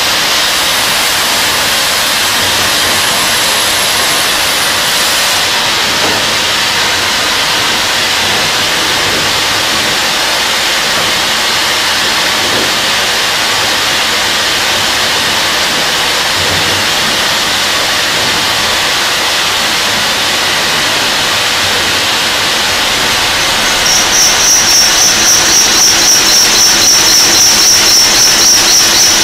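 Burgsmüller L5.4 thread whirling head cutting a screw element: a loud, steady hissing rush of the machining. Near the end, a high steady whine joins in with an even pulsing of about two to three beats a second.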